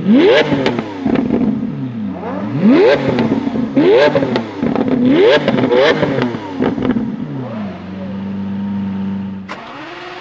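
Lamborghini Aventador's V12 being revved while stationary: about five quick throttle blips, each rising sharply and falling away with exhaust crackles and pops. It then settles to a steady idle.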